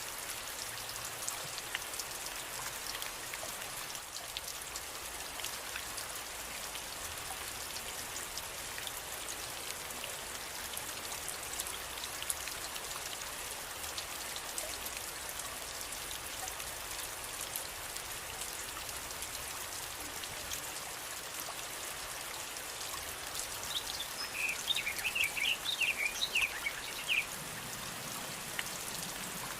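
Steady rain falling, with single drops ticking throughout. Near the end a bird chirps a quick run of short high notes for a few seconds.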